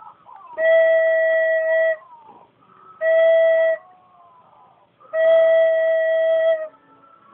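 Recorder playing three long notes held on the same pitch, each about one to one and a half seconds, with short pauses between them.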